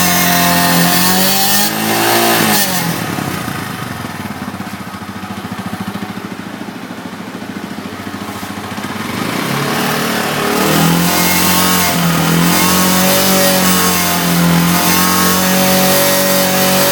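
T2 250 motorcycle engine held at high revs, dropping to a lower idle about two seconds in, then revved back up about ten seconds in and held steady. The owner hears an abnormal noise near the exhaust pipe at around 6000 rpm.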